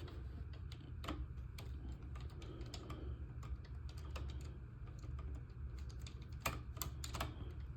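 Faint, irregular small clicks and taps of model-kit parts and a small screw being handled and fitted, with a few sharper clicks near the end, over a low steady hum.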